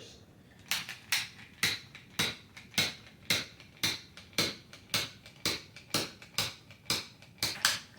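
MAPP gas torch igniter clicking over and over, about two clicks a second, without the forge lighting.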